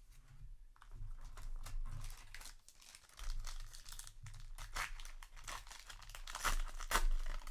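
Trading-card booster pack wrapper crinkling and crackling as it is torn open and handled, loudest near the end.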